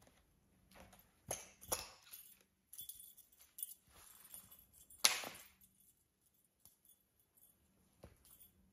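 A cat scuffling under a felt play mat on a wooden floor: scattered rustles and soft knocks, with the loudest knock about five seconds in.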